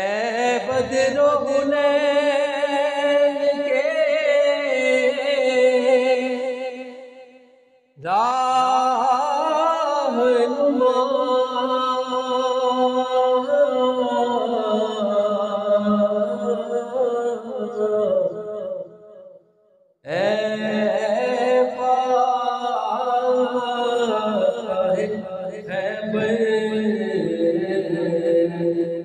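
A man singing a naat unaccompanied into a microphone: three long phrases of held, wavering notes, with a short break for breath between each.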